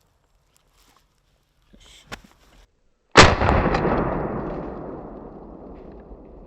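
A single shotgun shot about three seconds in, fired at a wild turkey gobbler. Its boom rolls away through the woods and fades slowly over the following seconds.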